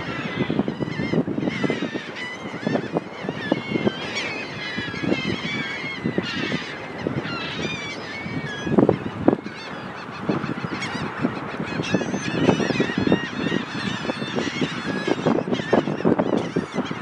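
A flock of seagulls calling over one another in a feeding frenzy, many short squawking calls overlapping without pause.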